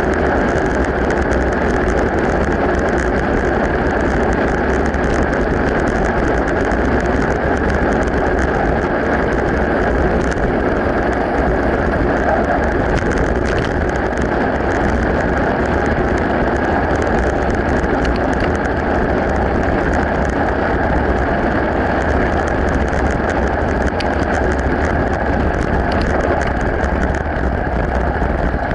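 Mountain bike rolling along a gravel track, heard from a camera riding with it: a steady loud rush of wind and tyre noise, with small clicks and rattles scattered through it.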